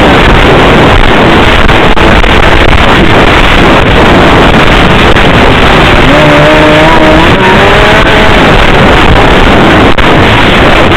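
Snowmobile engine running under way, loud, mixed with heavy wind noise on the microphone. About six seconds in, the engine note rises for a couple of seconds as it speeds up.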